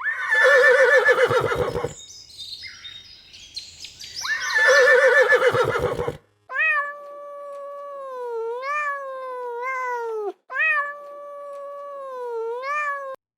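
Animal calls: two loud, quavering bleat-like calls, then two long, drawn-out calls of a few seconds each whose pitch slides up and down, each cut off abruptly.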